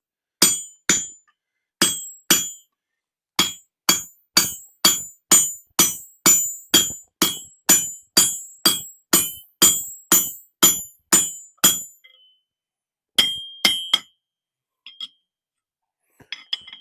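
Hand hammer striking a punch to widen a punched hole in hot steel on an anvil, at a steady pace of about two ringing blows a second. The hammering stops about twelve seconds in, two more blows follow, then a few light metallic clinks near the end.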